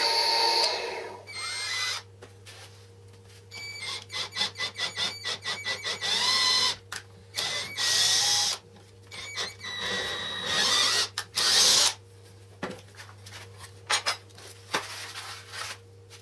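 A drill press boring into MDF stops about a second in. Then a cordless drill-driver runs in a series of short bursts, its motor pitch sliding with each trigger pull as it drives screws into a wooden jig.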